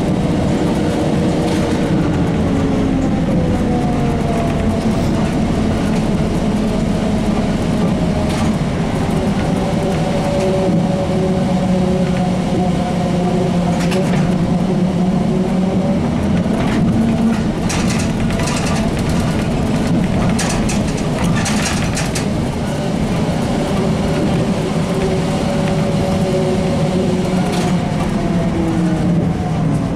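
ZiU-682 trolleybus on the move, heard from on board: a steady rumble of running gear under the whine of the traction motor. The whine drifts in pitch with speed and falls away near the end as the trolleybus slows. Short rattles and clicks from the body come through, most of them in the second half.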